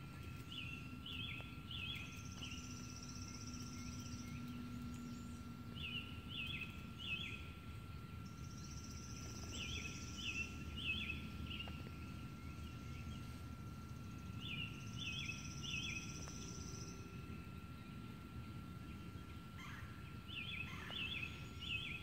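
Songbirds singing: a clear three-note phrase repeated every four to five seconds, alternating with a higher buzzy trill about a second and a half long. A faint steady hum runs underneath.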